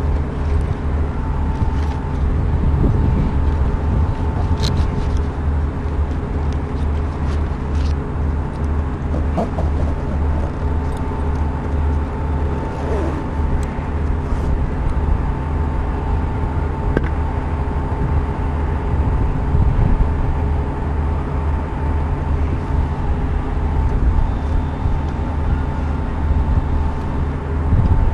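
Wind buffeting the microphone high on a ship's mast, a heavy uneven rumble, over a steady machinery hum with a few clear tones. A few light clicks of hands on the metal mast come through.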